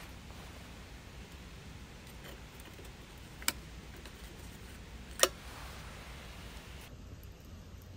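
Two sharp clinks of small metal and glass lantern parts being handled on a table, about a second and a half apart; the second is louder, with a short ring. A faint low steady background rumble runs underneath.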